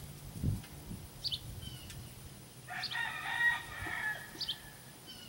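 A rooster crowing once, about three seconds in, for over a second. Short high bird chirps come three times, and there is a low thump about half a second in.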